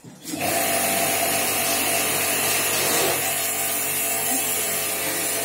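Air-conditioner service jet pump (portable high-pressure washer) switched on and running steadily: a motor hum under a loud hiss.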